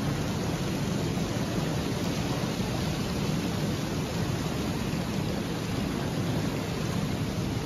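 Water churning into a canal lock chamber through the upstream gate's sluices as the lock fills: a steady, even rushing.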